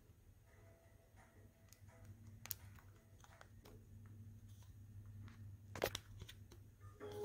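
Quiet room tone with a steady low hum and a few soft, sharp clicks, the loudest about six seconds in.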